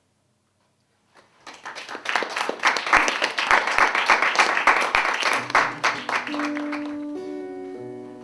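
Audience applause for about five seconds, starting after a moment of silence. As it fades, an acoustic guitar starts ringing sustained notes that step in pitch a few times.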